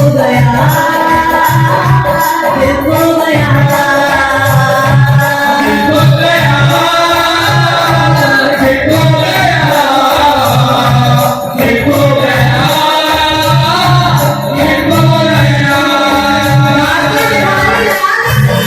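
Hindu devotional bhajan music with singing over a steady drum beat.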